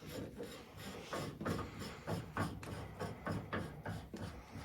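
Irregular small clicks, scrapes and rubbing of a replacement air vent head being handled and threaded onto a boiler's air separator.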